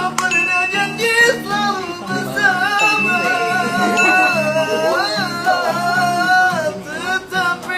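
Someone singing a melody with held, sliding notes over a strummed acoustic guitar accompaniment.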